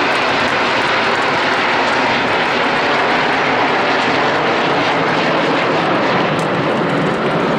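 Formation of Aermacchi MB-339 jet trainers passing overhead: the steady, loud roar of their turbojet engines.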